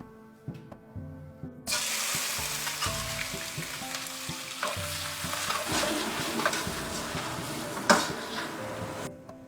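Food hitting hot oil in a pan starts sizzling loudly and suddenly about two seconds in, with the clicks and scrapes of stirring and a sharp knock of the utensil against the pan near the end; the frying stops shortly before the end. Soft background music plays underneath.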